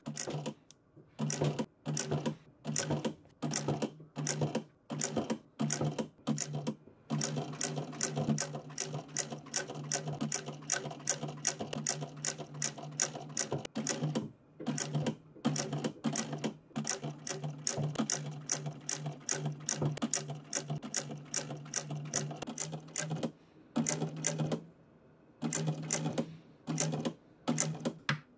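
Industrial sewing machine with a wheel presser foot stitching through leather: short stop-start runs of rapid needle strokes, then a long continuous run from about seven seconds in to about twenty-three, broken once briefly, then short runs again near the end. A steady motor hum sounds under the stitching while it runs.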